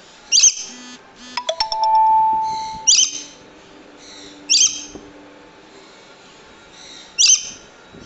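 Swainson's lorikeet (rainbow lorikeet) giving four short, shrill screeching calls a second or two apart. Between the first two calls a loud two-tone ringing chime sounds for about a second and a half, louder than the calls.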